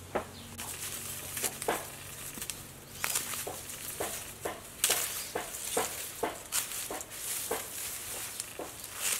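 A kitchen knife cutting through lemongrass stalks at the base of the clump: a run of sharp crunching cuts, about two a second, with the dry leaves rustling.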